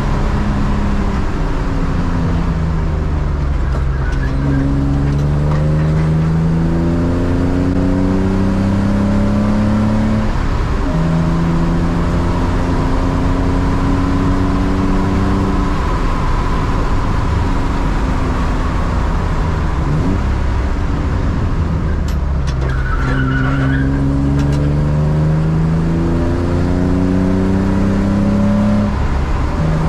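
BMW E36 328is engine heard from inside the cabin, pulling through the gears: its pitch climbs for several seconds, drops at each shift, holds fairly steady for a stretch in the middle, then climbs again near the end.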